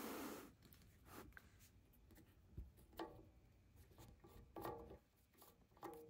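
Near silence. A short rustle ends about half a second in, and faint pitched music notes begin about three seconds in.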